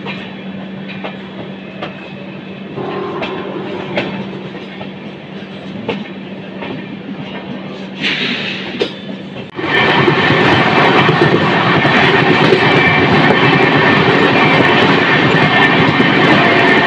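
Express train coach heard from inside, rolling slowly with its wheels clicking over rail joints about once a second over a steady hum. About ten seconds in it cuts abruptly to a much louder, steady rushing rumble as the train runs at speed.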